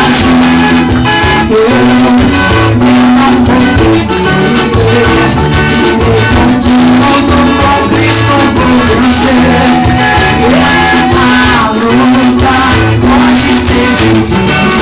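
Upbeat live gospel praise music with a Latin dance feel: band instruments with a steady shaken percussion rhythm and some singing.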